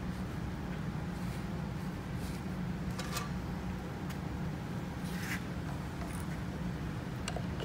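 Steady low hum of the workshop's background machinery, with a few faint scratches, about 3 and 5 seconds in, as a cotton swab rubs acid etchant onto a cut steel weld section.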